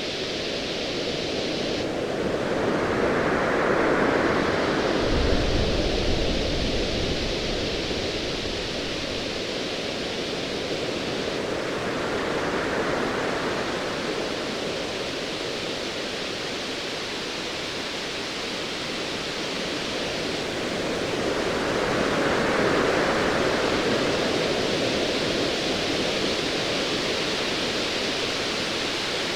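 Ocean waves surging in slow swells, one building to a peak about four seconds in and another around twenty-two seconds, over a steady wash of surf. A low rumble of distant thunder sits under the first swell, about five to nine seconds in.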